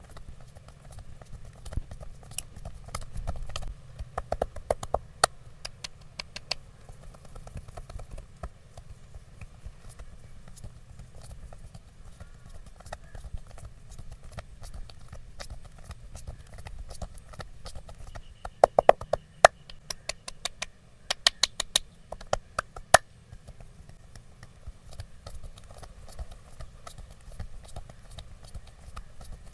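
Wooden massage sticks tapping on the head and back in quick runs of sharp knocks, the loudest run about two-thirds of the way through.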